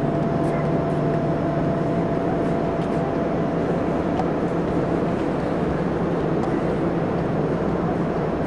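Steady mechanical hum of a docked cruise ship's machinery: a constant low drone with a fainter higher tone over it.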